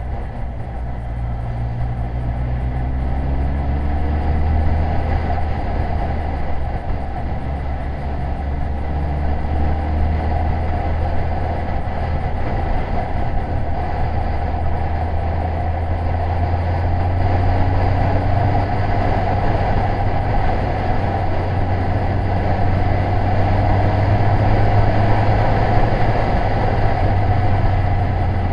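Yamaha FJR1300 sport-touring motorcycle heard from a bike-mounted camera while riding at steady speed: a continuous engine hum mixed with wind and road noise, its pitch rising gently a few times as the bike accelerates.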